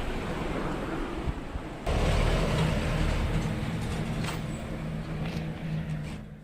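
An engine running steadily. It comes in suddenly about two seconds in, after a stretch of rushing noise, and stops abruptly at the end.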